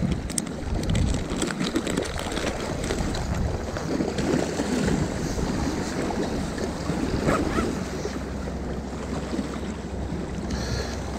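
Small sea waves washing and lapping against the rocks at the water's edge, with wind buffeting the microphone. A few light clicks sound in the first second.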